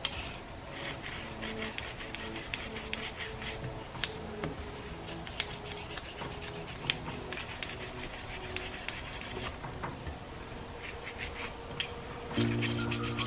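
Toothbrush bristles scrubbing quickly back and forth over a Diamondback DB380 pistol slide, working grime out of its inner rail grooves. Background music grows louder near the end.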